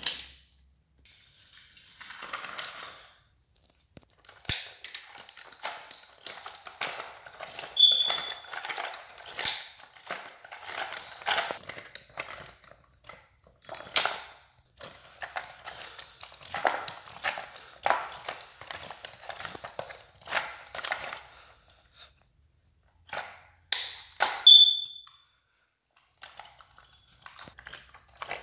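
Toy trains handled on a wooden railway track: irregular clacks, knocks and rolling rattles as wooden engines and wagons are pushed, coupled and set down. Two short high pings, once about a third of the way in and once near the end, are the loudest sounds.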